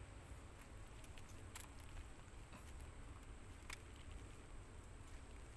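Faint handling sounds of a suckermouth armoured catfish and trap being worked by hand: a few light clicks and rustles, about a second and a half in and again near four seconds in, over a low steady rumble.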